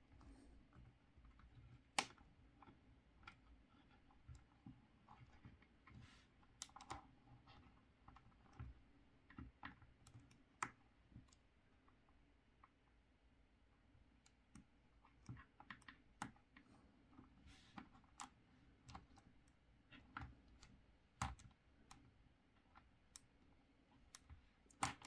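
Faint, scattered clicks and light plastic rubbing from a Star Wars Black Series Snowtrooper action figure being handled and its leg joints worked into a kneeling pose, with a sharper click about two seconds in.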